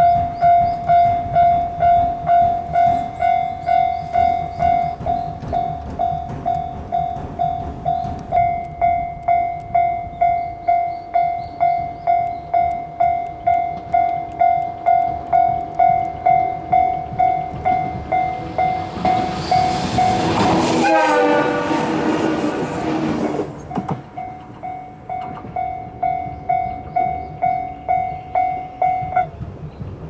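A Japanese railway level-crossing alarm rings with a steady, repeated electronic ding, about one and a half strikes a second, while the barriers are down. About nineteen seconds in, a red electric train rushes past loudly, with a sweep of falling tones as it goes by. The alarm stops near the end as the crossing clears.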